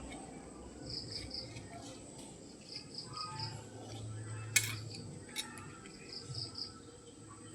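High-pitched chirping in three short runs of three or four chirps each, with a single sharp click about four and a half seconds in.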